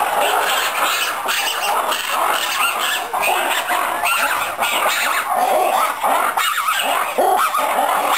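Black-and-white ruffed lemur calling loudly and without a break, many harsh overlapping calls: the species' loud-call chorus.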